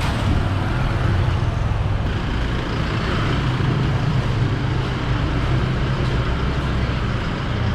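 Street traffic noise with a steady low engine rumble from motor vehicles running close by.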